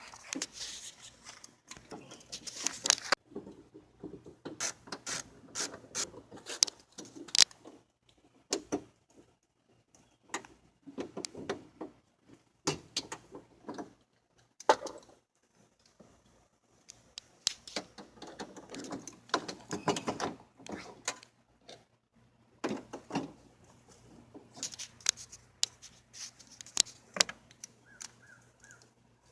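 Irregular clicks, knocks and rubbing of hand tools and metal parts working inside a car door, as a power window regulator is fastened in.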